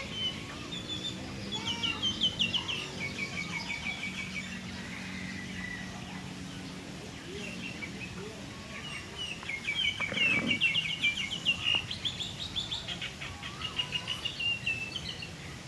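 Small birds chirping, in fast trills of short repeated high notes that come in two spells, a short one near the start and a longer one in the second half.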